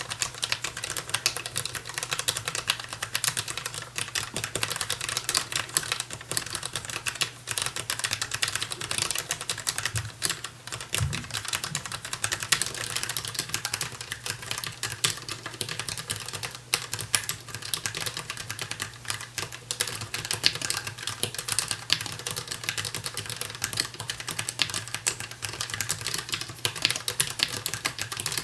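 Continuous fast typing on a DAREU EK820 low-profile mechanical keyboard with Kailh LP red linear switches: a dense, unbroken stream of light key clicks, over a faint steady low hum.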